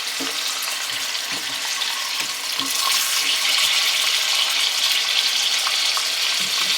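Chicken breasts sizzling in olive oil in a cast iron skillet: a steady frying hiss with small crackles and pops.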